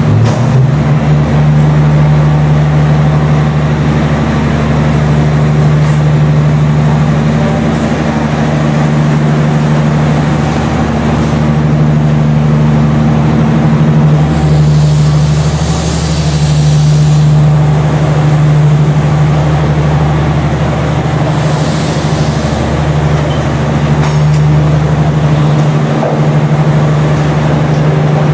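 Reunification Express train running: a loud, steady low drone, with a hiss that swells briefly around the middle and again later on.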